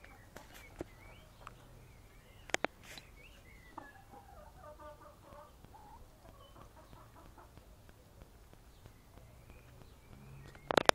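Domestic hens foraging on grass, giving soft, intermittent clucks and chirring calls. Two sharp clicks come about two and a half seconds in, and a louder cluster of clicks near the end.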